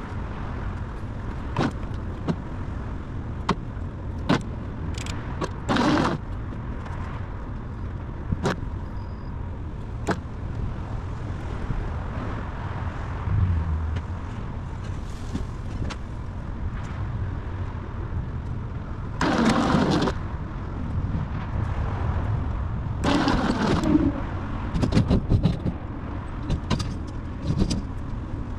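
Harbor Freight winch pulling a car up onto a steel trailer deck: a steady low motor drone, broken by scattered sharp clicks and clanks, with several louder scraping bursts in the second half as the car is dragged up.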